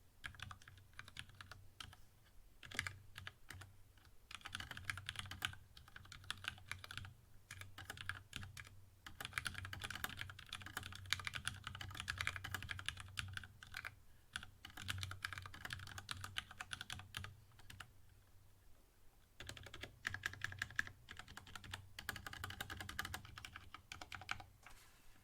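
Typing on a GK64X mechanical keyboard with lubed linear Cherry MX Black switches on a brass plate in a bamboo case: a steady stream of keystroke clacks, with denser fast runs and a few short lulls, and occasional heavier strokes such as the stabilized spacebar.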